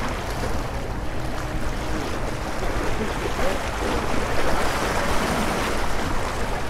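Small waves washing and splashing over rocks, with a hooked redfish thrashing at the surface beside a landing net; the splashing is heavier in the second half. Wind rumbles on the microphone throughout.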